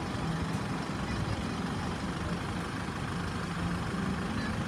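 Light diesel truck's engine idling close by, a steady low hum over street noise.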